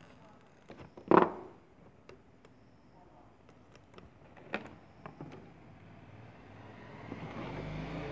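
Handling noise at a workbench during circuit-board soldering: one sharp knock about a second in and a few small clicks, then a steady low hum that builds over the last couple of seconds.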